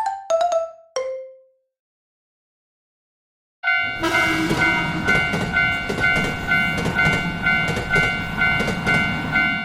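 A few short notes stepping down in pitch, then about two seconds of silence; then a railroad crossing warning bell starts ringing steadily, a little over two strokes a second, over a low rumble.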